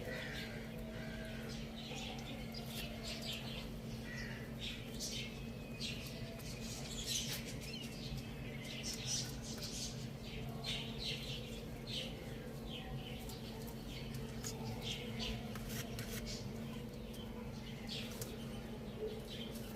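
Birds chirping: many short, high calls scattered throughout, over a steady low hum.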